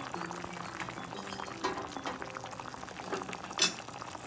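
Tomato salsa with poblano chile strips boiling in a pan: a steady run of small bubbling pops and crackles. A few louder pops stand out, the loudest about three and a half seconds in.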